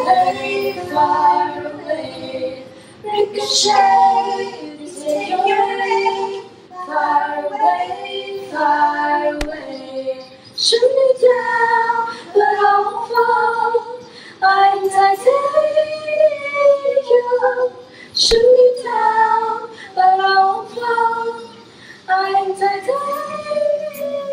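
Women's voices singing a song unaccompanied, with no instruments heard: the vocal part of a band's cover recording.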